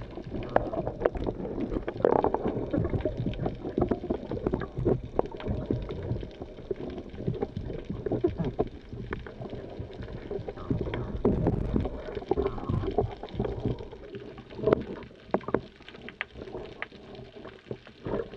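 Underwater water noise picked up by an action camera on a speargun: an uneven wash of sloshing and gurgling with irregular clicks and knocks throughout, as the freediver swims up and breaks the surface near the end.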